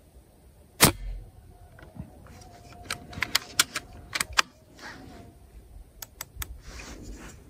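A moderated PCP air rifle, tuned with enlarged 4.7 mm ports and a stiffer double hammer spring, fires once about a second in: a single sharp crack with a low thump. Then comes a run of quick metallic clicks and rattles, in two bunches, as the action is handled.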